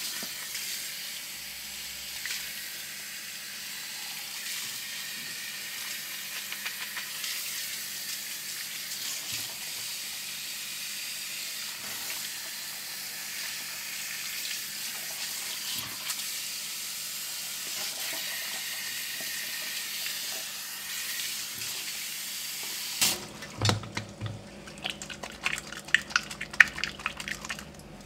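Water from a handheld shower sprayer running over a man's hair into a shampoo basin, a steady hiss that cuts off suddenly about 23 seconds in. After that, irregular wet crackles and taps of hands rubbing and pressing the wet hair and scalp.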